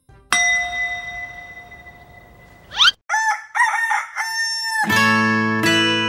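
A sudden ringing tone that fades away, then a rooster crowing, and acoustic guitar music starts about five seconds in.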